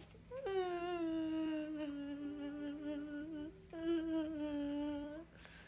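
A young boy crying in two long, steady moaning wails, the first about three seconds long and the second shorter, each cut off abruptly.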